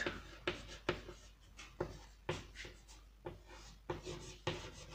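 Chalk writing on a chalkboard: a run of short, irregular scratches and taps as letters are written.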